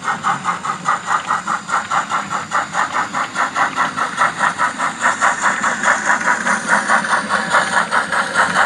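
Model steam tank locomotive under way, chuffing steadily at about five beats a second.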